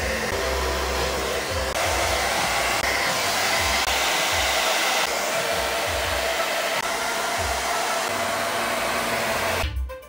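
Hair dryer running, a steady rush of blowing air, until it cuts off abruptly just before the end.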